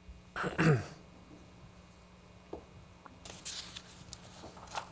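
A quiet meeting room with a short voice sound that falls in pitch about half a second in, then scattered soft rustles and light knocks as someone moves through the seated audience.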